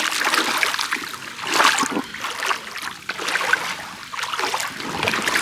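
Stream water splashing and sloshing in repeated surges, with loud swells about one and a half seconds in and again near the end.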